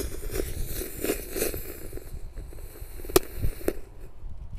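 Jumbo ground-spinner firecracker burning inside a PVC-pipe-lined hole in the ground: a rough, surging hiss, then a sharp pop about three seconds in and a smaller one about half a second later.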